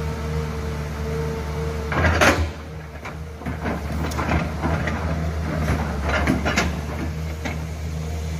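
Excavator's diesel engine running steadily, with a loud scrape about two seconds in and then a run of knocks and clanks as its bucket works the earth bank.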